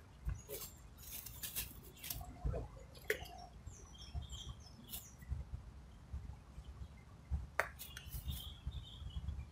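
Faint scattered crackles and clicks of footsteps and handling on dry leaf litter, with short high bird chirps in the background.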